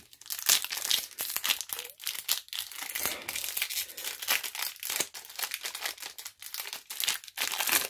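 Foil Yu-Gi-Oh booster pack crinkling and tearing as hands work it open, a dense run of irregular crackles.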